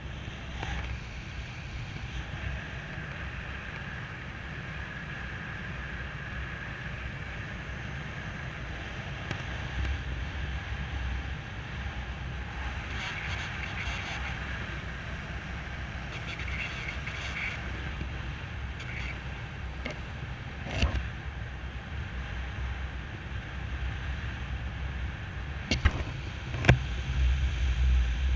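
Airflow buffeting the microphone of a camera on a flying paraglider: a steady low rumble of wind noise, with a few sharp knocks near the end.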